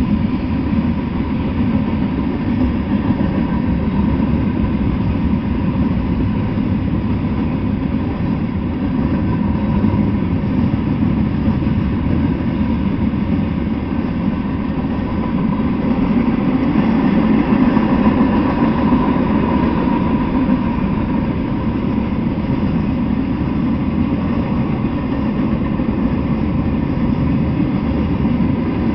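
Freight cars rolling steadily past on the tracks: a continuous low rumble of wheels on rails, with a faint steady tone above it.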